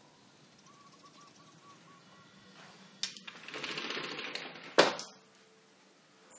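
A door being opened and shut while stepping in from a balcony: a click about halfway through, a second or so of rattling, then one sharp bang.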